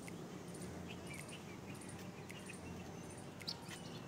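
Quiet outdoor ambience: faint, scattered high chirps over a low steady hum, with one small click about three and a half seconds in.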